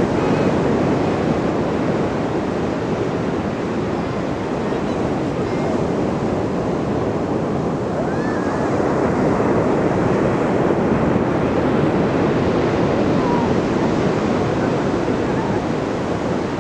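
Ocean surf washing onto the shore: a steady rushing roar of waves that swells and eases slightly.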